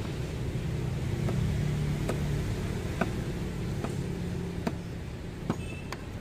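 Scattered sharp metal clicks of a screwdriver working the hose clamp on a Ford Ranger's turbo air inlet hose, over a steady low engine hum.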